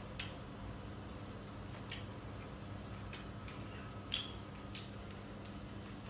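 Quiet eating sounds: a spoon and a bowl handled while chewing, giving a few short sharp clicks roughly a second apart, the loudest about four seconds in, over a low steady hum.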